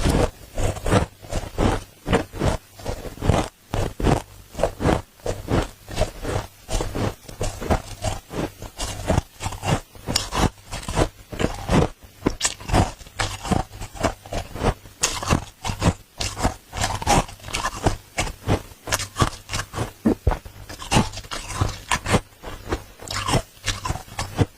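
Dry freezer frost crunching in a quick, irregular run of sharp crunches, about two to three a second.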